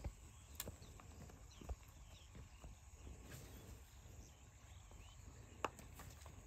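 Quiet open-air ambience with a faint low hum, broken by a few scattered sharp clicks, the loudest near the end, and a few faint high chirps midway.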